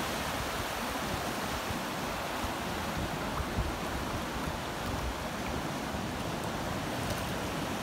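Small ocean waves washing up over the sand at the water's edge: a steady rush of surf.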